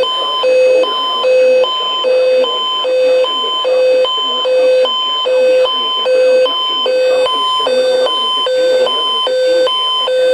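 Emergency alert attention tone carried over a radio broadcast, a buzzy electronic signal alternating rapidly between a low and a high pitch, about two low–high cycles a second.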